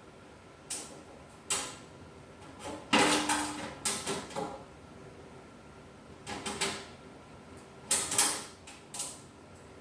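Metal bandsaw parts being handled and fitted during assembly: a string of irregular clanks, clicks and short scrapes, with a brief metallic ring about three seconds in.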